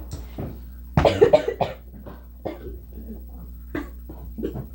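A person coughing, a short run of several quick coughs about a second in.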